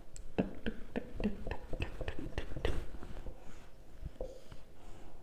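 Whiteboard marker drawing a quick run of short strokes, about four a second, as hatch marks are drawn along a line. A few fainter strokes follow near the end.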